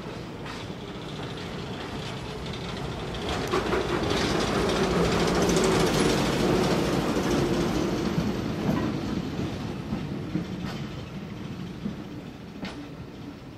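A diesel-hauled heritage train passing: the locomotive's engine and the wheels clicking over rail joints, building to a peak about six seconds in and then fading away.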